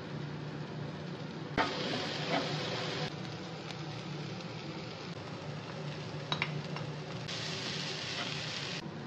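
Onions, spices and shredded chicken frying in a non-stick pan, sizzling, while a spatula stirs and scrapes the food around the pan. A sharp knock about a second and a half in is the loudest sound, and a few light clicks come later. A steady low hum runs underneath.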